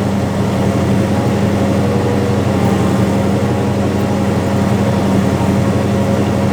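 Tractor's diesel engine running steadily under load while pulling a soybean planter.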